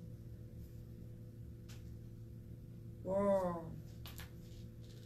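Quiet classroom room tone with a steady low electrical hum. About three seconds in, a single drawn-out spoken word is heard, followed shortly by a couple of sharp clicks.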